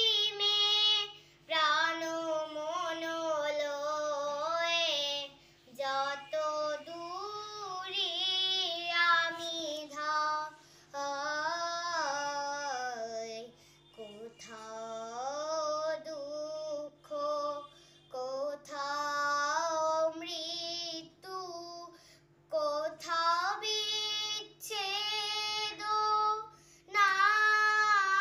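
Young girl singing a song solo, in long held and sliding notes broken by short pauses for breath, over a faint steady hum.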